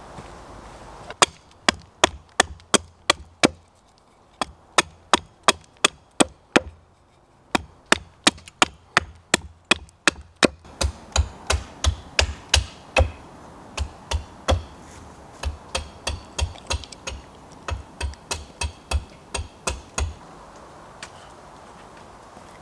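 An axe chopping wood in quick repeated strikes, about three a second, in runs with a couple of short pauses. The chopping stops a couple of seconds before the end.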